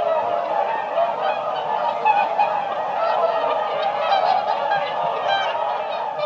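A flock of whooper swans calling together: many overlapping honking, bugle-like calls in a dense, continuous chorus.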